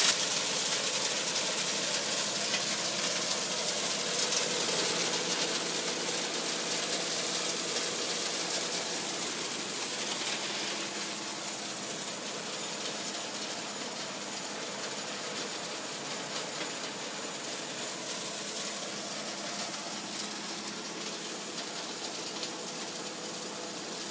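A sand washing machine running: a steady rush of water and wet sand over a constant machine hum. It drops a little about ten seconds in.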